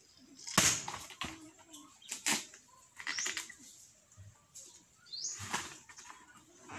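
Coconut husks being hacked and torn apart with a long-handled hand tool: irregular sharp cracking strikes, the loudest about half a second in, and a few short rasping rips of husk fibre.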